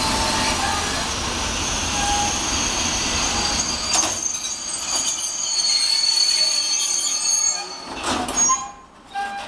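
CFR class 40 (LE 5100) electric freight locomotive and tank wagons rolling past: a steady rumble of wheels on rail, with a high-pitched wheel squeal through the middle. Sharp clanks come about four seconds in and again near the end, where the noise drops away.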